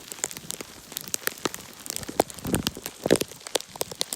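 Ice pellets (sleet) ticking on surfaces in quick, irregular pattering, like rain. Two duller, louder thumps come about two and a half and three seconds in.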